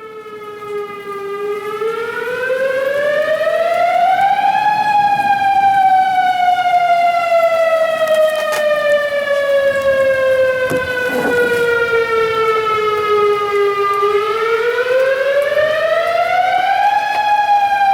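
Outdoor tornado warning siren sounding a wail: the pitch climbs over about three seconds, falls slowly for about nine, then climbs again and starts to fall near the end.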